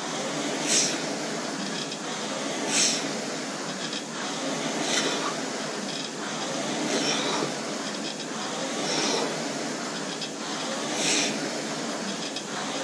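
Concept2 indoor rowing machine in hard, steady use during a 2,000 m test. Its air flywheel whooshes on every stroke, a sharp hiss about every two seconds (around 29 strokes a minute) over a continuous spinning rush.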